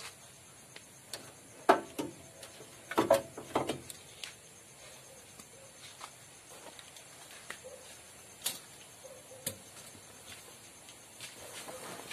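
Scattered knocks and clicks of hands and tools working on the rear engine compartment of a Bajaj RE auto-rickshaw. The loudest knock comes about two seconds in and a quick cluster follows around three seconds in, then a few lighter taps.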